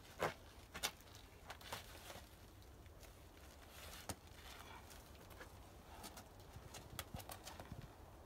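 Scattered scuffs and taps of a climber's rubber-soled climbing shoes and hands against a rock boulder during a climb. The loudest are two sharp knocks about a quarter second and just under a second in, with more small scrapes and taps later on.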